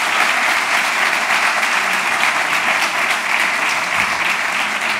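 Audience applauding steadily: dense, sustained clapping from a seated crowd.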